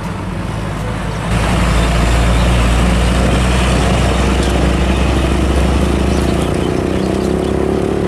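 Hino car-carrier truck's diesel engine running as the loaded truck drives past. The sound gets louder about a second in and the low rumble eases off near the end.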